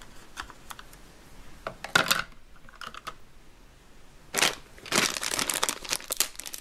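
Plastic toy pieces clicking and tapping as they are handled, then from about four and a half seconds in, a plastic bag crinkling.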